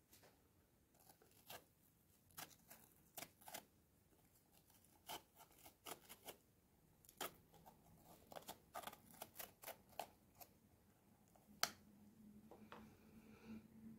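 Small knife cutting around the stem and scraping out the core and seeds of a green bell pepper: a string of crisp, irregular crunches and clicks, the loudest near the end.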